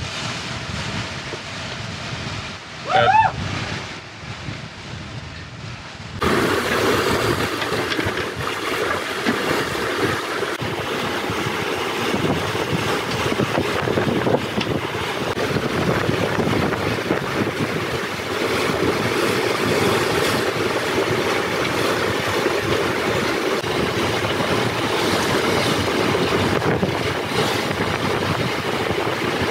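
Wind rushing over the microphone and water rushing past the hulls of a Leopard 45 catamaran under sail. There is a brief rising sound about three seconds in. The noise jumps louder about six seconds in and stays steady after that.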